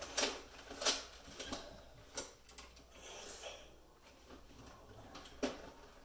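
Nerf foam-dart blasters firing and darts hitting: scattered sharp clicks and knocks, about half a dozen in all, the loudest about a second in.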